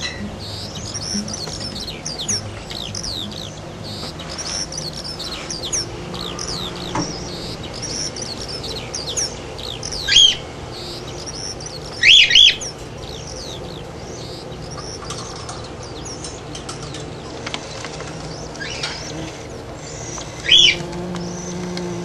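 Cockatiels chirping steadily in a cage, with short twittering notes throughout. Louder calls stand out once about ten seconds in, twice in quick succession about twelve seconds in, and once near the end.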